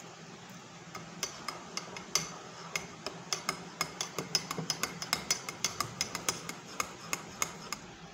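Metal spoon stirring milk into beaten coffee in a ceramic mug, clinking against the mug's sides in quick repeated strikes, about four a second, starting about a second in and stopping near the end.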